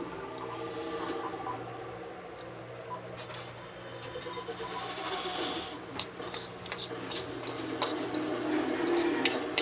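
Spoon and fork clinking against a plate while eating: scattered sharp clicks from about three seconds in, growing more frequent near the end, over a steady low hum.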